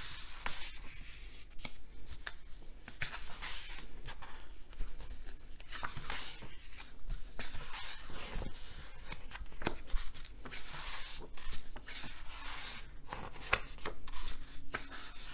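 Pages of a large illustrated art book being turned and smoothed by hand: repeated paper swishes and rustles, with small taps and clicks between them.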